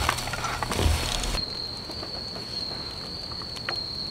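A cricket trilling steadily on one high note throughout. For about the first second and a half, food sizzles in a pan with a few utensil clicks, then the sizzle cuts off abruptly and only the trill is left.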